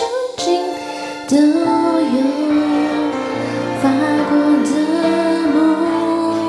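Woman singing a slow Mandarin pop ballad into a handheld microphone over a karaoke backing track, holding long, wavering notes.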